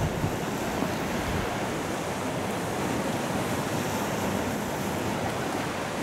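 Sea surf washing onto a sand-and-pebble beach: a steady, even rush of waves.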